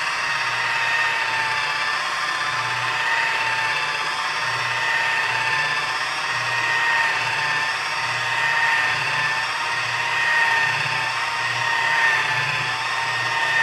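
Chicago Electric variable-speed electric buffer running at its lowest speed with a damp foam buffing pad, polishing rubbing compound into sanded paint: a steady motor whine over a low hum that swells and fades slightly as the pad works the surface.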